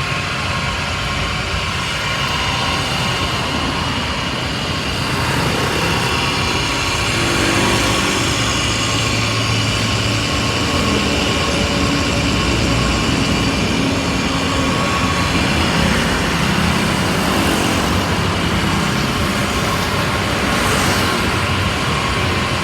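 A three-phase, 3-horsepower cutting machine's electric motor running steadily.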